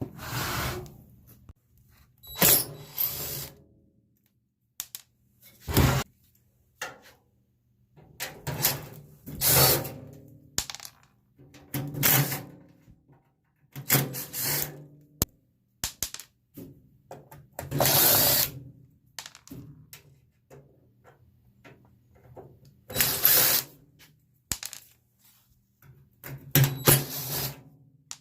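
Power drill backing screws out of a microwave oven's sheet-metal cover: a dozen or so short runs of the motor, each lasting under a second, with pauses between.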